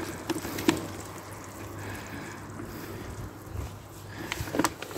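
Powdered calcium carbonate being poured from a plastic bag into a metal bucket of water: a faint, soft pour with a few light clicks from the bag.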